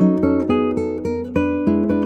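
Background music of acoustic guitar, plucked notes in a quick, even run.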